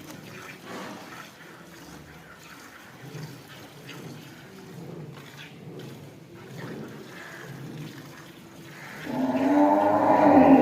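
Milk squirting into a pail as a cow is milked by hand. About nine seconds in, a cow lets out a loud, long moo that is still going at the end.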